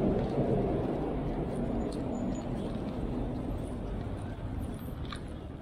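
City street traffic: the rumble of a passing vehicle slowly fading away, with a couple of faint clicks near the end.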